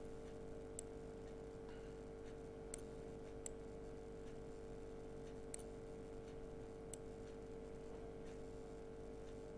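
A few faint, sharp computer-mouse clicks, about five spread over several seconds, as strokes are drawn on screen, over a steady electrical hum.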